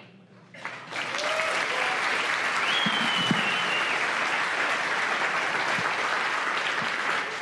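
Large conference audience applauding, the clapping starting about a second in and then holding steady.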